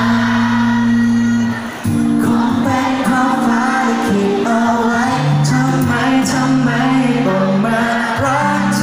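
Live pop song played loud through a PA: singing over a backing track with sustained bass notes. The sound briefly dips just before two seconds in.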